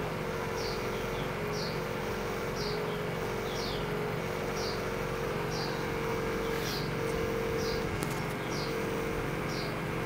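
Steady hum of an aquarium's air pump or filter, with a short, high, falling chirp repeating about once a second.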